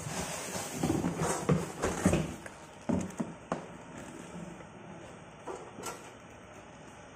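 A metal cut-off saw being unpacked from its cardboard carton: the cardboard rustles and scrapes with a string of irregular knocks over the first few seconds, then a couple of lighter clicks near the end.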